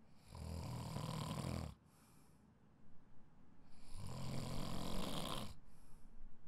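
A sleeping person snoring: two loud, buzzing snores about three and a half seconds apart, each followed by a short, softer breath.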